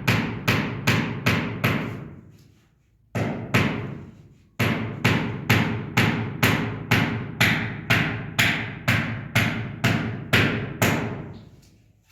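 Repeated hammer blows at an even pace, about two and a half strikes a second, each with a short ringing decay. They stop about two seconds in, start again about a second later, break off briefly, then run on until near the end.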